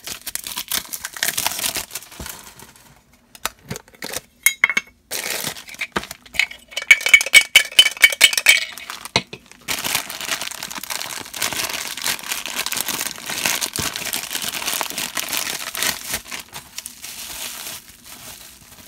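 Plastic shrink film crinkling as it is peeled off a metal Funko Soda can, then the tin can clinking and ringing midway as it is handled and opened, the loudest part. After that comes a long stretch of a thin black plastic bag crinkling, with bubble wrap near the end, as the figure is unwrapped.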